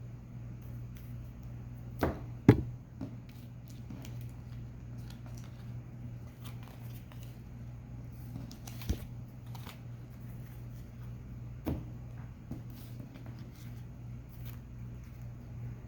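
Trading cards and card packs being handled on a table: scattered soft rustles and a few sharp clicks, the loudest about two seconds in and again half a second later, over a steady low hum.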